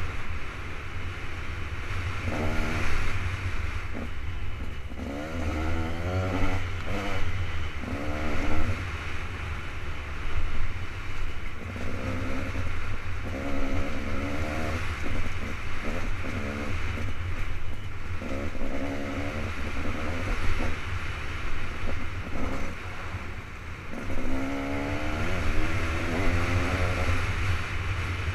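KTM 200 XC-W's single-cylinder two-stroke engine under way on a dirt trail. Its pitch rises and falls over and over as the throttle is worked and it changes gear.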